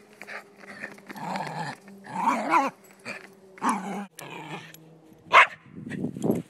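Silky terrier growling and barking in short bursts while tussling with a ball, with one sharp, louder bark about five seconds in.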